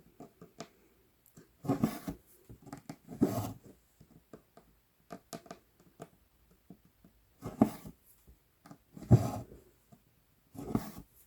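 Cross-stitch floss being drawn through 11-count Aida cloth: five short rasping pulls at uneven intervals, with small clicks and taps of the needle piercing the fabric between them.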